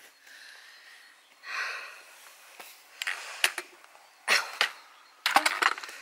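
A person breathing out hard a few times, the breaths short and hazy, between scattered clicks and knocks, most of them close together near the end.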